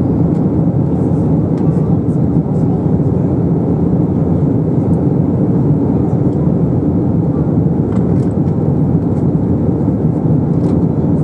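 Steady cabin noise of an Airbus A321 in flight: the even rumble of the engines and airflow heard inside the cabin at the wing, with a few faint clicks and rattles.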